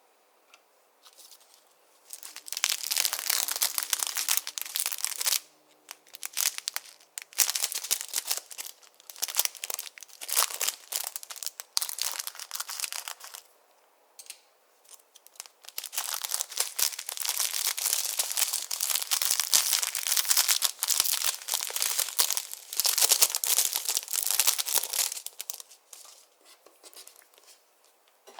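Clear slime being worked by hand, giving dense crackling and popping in three long stretches with short pauses between them.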